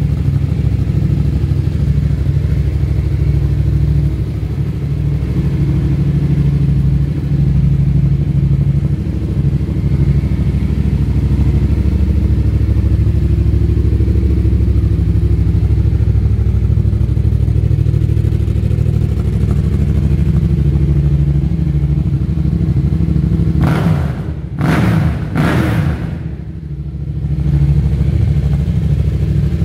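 Yamaha MT-07's 689 cc parallel-twin engine idling steadily through a Black Widow aftermarket exhaust. Near the end it is revved in a few quick throttle blips, then settles back to idle.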